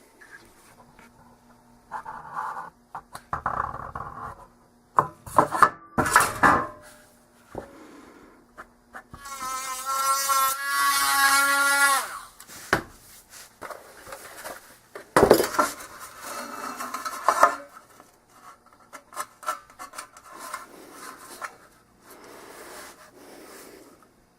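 A handheld power tool's small electric motor spins up with a rising whine about nine seconds in, runs steadily for about three seconds, then stops. Scattered knocks and clatter of metal parts and tools being handled come before and after it.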